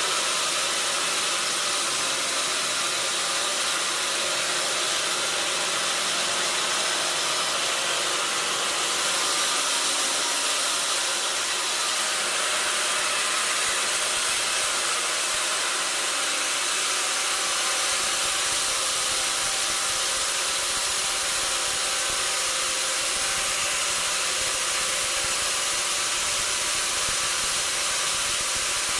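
Sawmill machinery running steadily: a continuous, even hiss-like mechanical noise with a faint steady hum under it.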